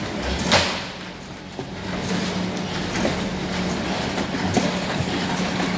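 Packing-line machinery running with a steady hum that comes up about two seconds in. A sharp knock sounds about half a second in, with scattered lighter knocks of broccolini bunches being handled on the conveyor.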